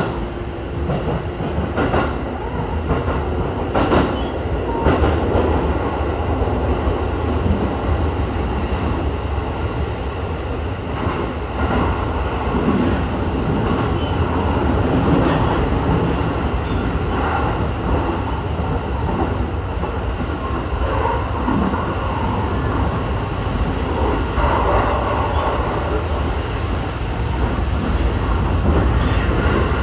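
Electric commuter train running on the rails, heard from inside the front of the car: a steady rumble of wheels and running gear, with occasional clacks over the track.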